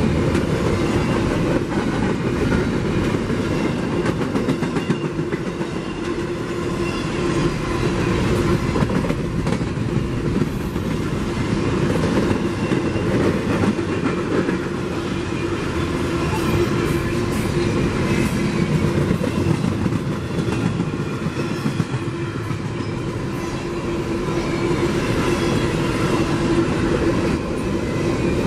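Freight train cars rolling past: a steady rumble and clatter of steel wheels on rail, with a steady tone under the noise.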